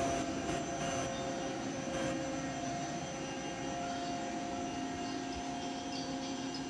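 SNK SUT-60 CNC lathe running with its spindle turning: a steady machine hum carrying several held tones. The spindle runs very quietly, a sign that it is in perfect condition.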